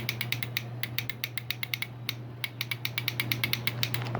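Yamaha R6 sport bike clicking rapidly and irregularly, several sharp clicks a second, instead of cranking over when the starter is pressed: the no-start fault, typical of the starter relay chattering.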